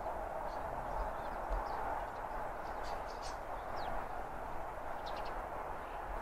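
Steady, distant rumble of a Gresley A4 Pacific steam locomotive (60009) and its train of coaches running past. The wind gives low thumps on the microphone, and small birds chirp briefly a few times.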